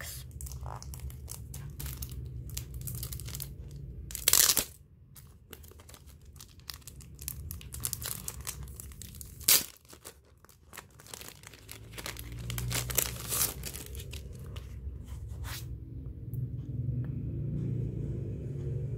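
Clear plastic sleeve crinkling and rustling as plastic binder index sheets are handled and slid out of it, with louder crackles about four seconds in and again near the middle.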